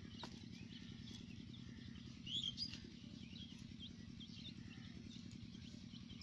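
Young domestic chicks peeping as they forage: short, high, scattered chirps, a few louder ones about two and a half seconds in, over a faint steady low hum. The chicks are hungry and searching for food and water.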